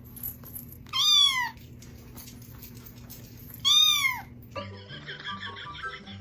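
A cat meowing twice, two loud, high meows about two and a half seconds apart, each falling in pitch. Light music with short struck notes starts near the end.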